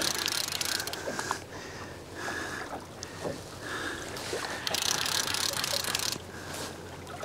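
A fishing reel being wound in short spells as a hooked fish is pumped up on a rod, over water slapping against a small boat's hull and wind.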